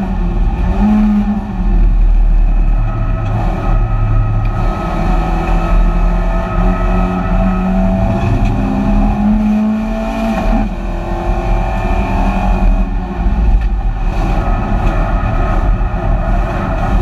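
BMW 318ti Compact race car's four-cylinder engine running hard at racing speed, heard from inside its stripped, roll-caged cabin, its pitch rising and falling through the lap.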